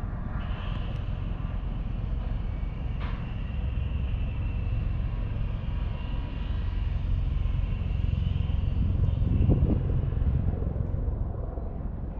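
Engine noise: a steady low rumble with a thin high whine above it, swelling to its loudest about nine and a half seconds in, then easing.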